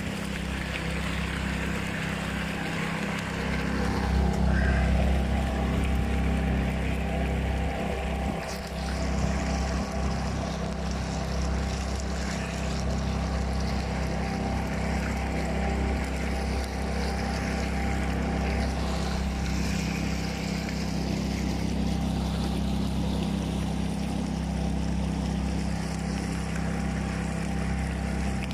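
A small fishing boat's motor runs steadily under throttle with a low, even drone, and water rushes along the hull as the boat moves through a strong river current.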